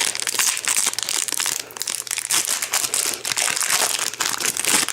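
Foil booster-pack wrapper crinkling and crackling as it is handled and torn open, a dense run of irregular crackles.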